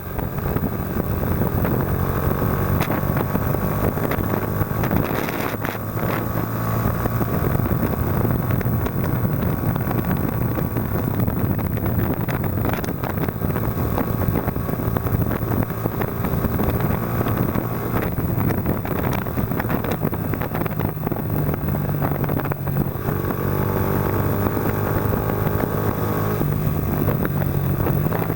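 Yamaha Factor 125's single-cylinder four-stroke engine running through a Roncar Aluminium RS aftermarket exhaust while the bike is ridden, its note rising and falling with the throttle and gear changes several times.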